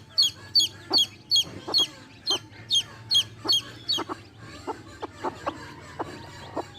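Baby chicks peeping rapidly, about three high, falling chirps a second, which stop about five seconds in. A mother hen makes low clucks in between.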